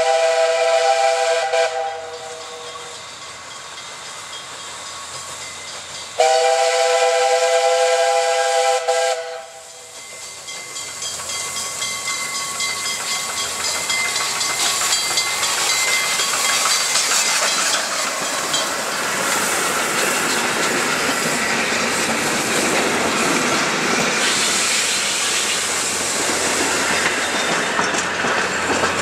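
Steam whistle of the Frichs-built 1949 tank locomotive F654 sounded in two blasts of about three seconds each: the first fading in the opening seconds, the second about six seconds in. After that the steam train's hiss and running noise grow steadily louder as it approaches, ending with the carriages rolling past close by.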